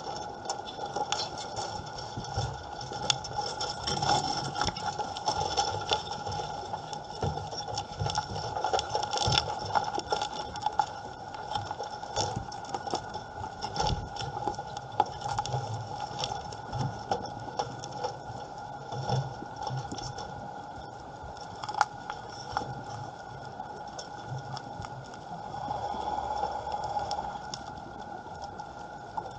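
Underwater ambience: constant crackling and clicking over a steady hum.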